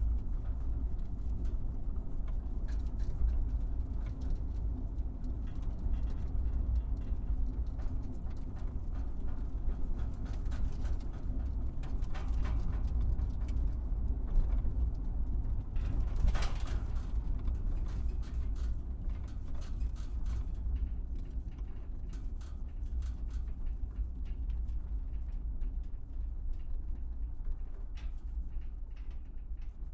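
Truck driving over a bumpy surface: a steady low rumble with frequent knocks and rattles as it jolts over the bumps, and one harder jolt about sixteen seconds in.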